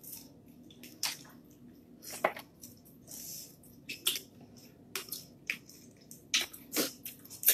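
Eating shellfish by hand: a scattered series of short, wet clicks, smacks and squelches as shell is pulled apart and the meat is sucked from fingers and shell.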